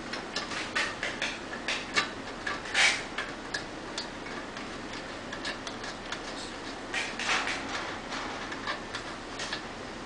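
Irregular metal clicks, taps and short scrapes of a lock nut being threaded onto and tightened against a bicycle pedal crank's bottom-bracket bearing. The nut is left-hand threaded, so it is turned counterclockwise to lock.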